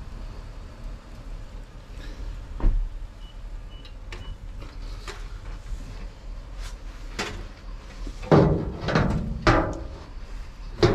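Rummaging in a dumpster full of cardboard boxes and plastic bags: a knock a few seconds in, scattered light rustles and clicks, then a run of loud scraping sounds near the end, over a steady low rumble.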